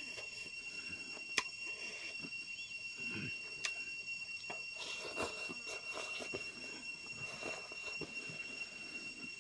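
Mouth sounds of a man eating rice by hand: chewing and lip smacks, with a few sharp clicks, over a steady high-pitched whine.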